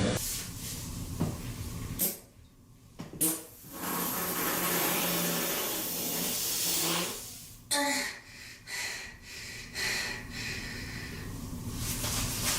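Human farts from a run of short clips. The longest is a drawn-out, hissy fart of about four seconds with a low tone under it, starting about three seconds in, followed by shorter bursts.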